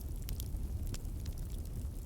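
Wood fire crackling: irregular sharp pops and snaps over a low steady rumble of burning logs.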